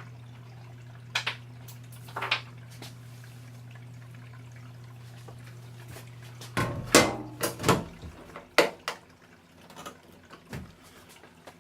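Scattered metallic clinks and knocks as the sheet-metal front cover of a tankless water heater is fitted back on, with the loudest cluster about two-thirds of the way through. A steady low hum runs underneath and stops at about the same point.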